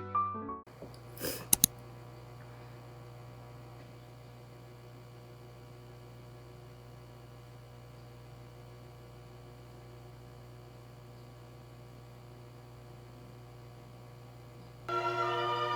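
A steady low electrical hum, with two sharp clicks about a second and a half in. Piano music stops just after the start and string music comes in near the end.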